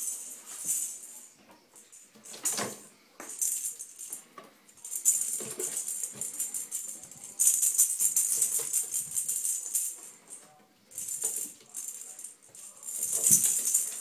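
Two ferrets' claws scrabbling and skittering on the sides of a bathtub as they play. The scrabbling comes in bursts, the longest starting about halfway through, with a few short knocks in between.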